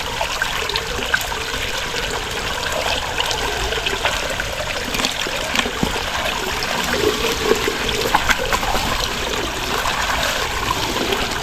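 Rainwater runoff running and trickling steadily, with scattered small splashes.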